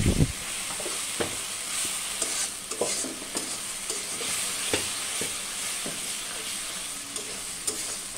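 Onion-and-spice masala frying in a steel karahi, sizzling steadily while a steel spoon stirs and scrapes it, with scattered clinks of the spoon against the pan. A low thump right at the start.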